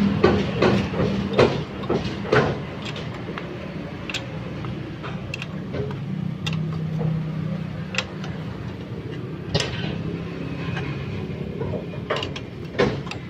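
Metal clinks and taps of nuts, washers and a spanner on the steel studs of a bolted flange, several quickly at first and then one every second or two, over a steady low hum.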